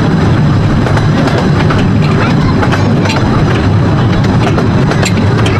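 Miniature 15-inch-gauge train running along the track, heard from an open carriage: a loud, steady rumble of wheels on rails with scattered sharp clicks and clatter.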